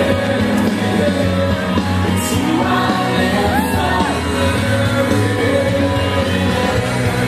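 Music with singing, loud and steady throughout.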